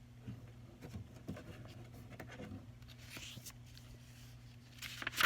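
Faint paper rustling and small handling clicks as a picture book's page is turned, with a louder rustle near the end, over a faint steady low hum.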